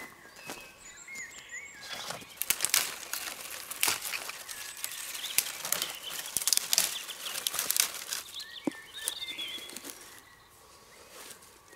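Dry dead pine twigs being snapped and rustled by hand while gathering kindling: a dense run of sharp cracks and crackles lasting several seconds. A small bird chirps near the start and again near the end.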